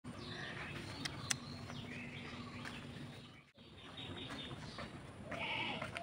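An animal calling several times, with a short break about halfway through.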